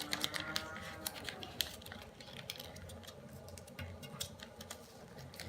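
Square origami paper being folded and creased by hand: light, irregular clicks and crackles of the paper.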